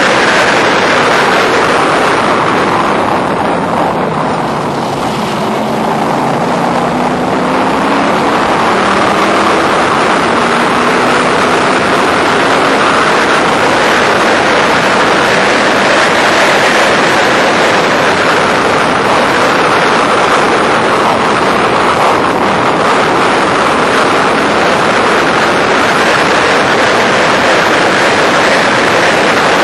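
Onboard sound of a Factory Five Racing roadster at race speed: heavy wind rush over the open cockpit mixed with the engine running hard. About four seconds in the engine eases off as the car slows, then its pitch climbs as it accelerates again.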